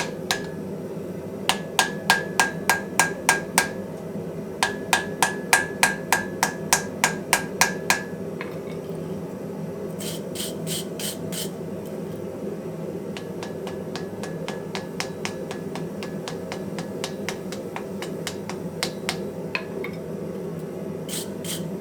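Hand hammer striking hot wrought iron on an anvil, straightening it, in runs of blows about three a second, each with a ringing anvil note. The hammering stops about eight seconds in, leaving a few lighter, higher taps over a steady low hum.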